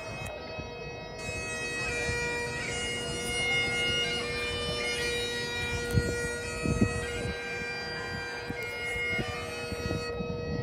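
Bagpipe music: a steady drone held under a chanter melody, with two short low thumps a little past the middle.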